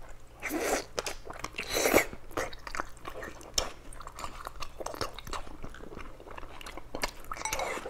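A person biting into a thick slab of pork and chewing it close to a clip-on mic: wet chewing and smacking with many small clicks, loudest about half a second and two seconds in.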